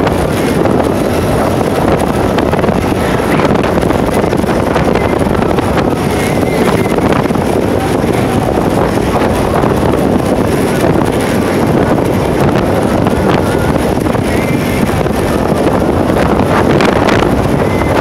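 Steady wind rushing over the microphone of a camera on a moving motorcycle, mixed with road and engine noise.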